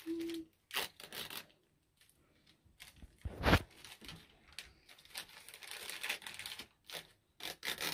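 Plastic foil toy packets being torn open and crinkled by hand, in irregular short rips and rustles, with one louder thump about three and a half seconds in.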